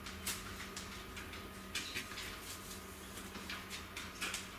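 Faint clicks and scrapes of a kitchen knife cutting through a cling-wrapped slab of pressed dates, dried fruit and nuts, the blade meeting a plastic cutting board.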